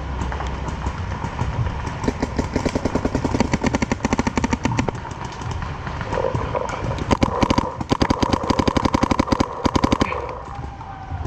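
Paintball markers firing rapid strings of shots, many per second, in two long bursts: one starting about two seconds in and lasting about three seconds, another from about seven seconds in to about ten seconds.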